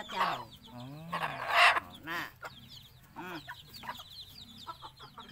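Chickens clucking while being held and handled, with one loud squawk about a second and a half in.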